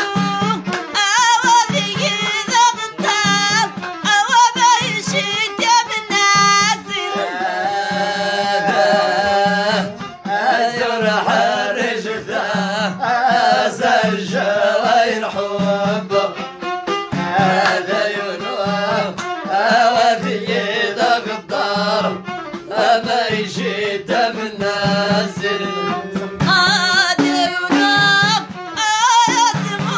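Moroccan Amazigh folk music (izlan): a bowed violin melody over a steady hand-drum beat.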